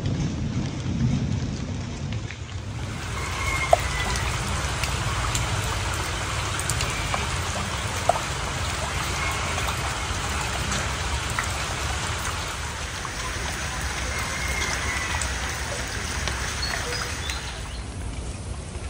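Heavy rain pouring down on canal water and leaves: a dense, steady patter of drops that comes in fully a couple of seconds in, over a steady low rumble, with two sharp taps standing out.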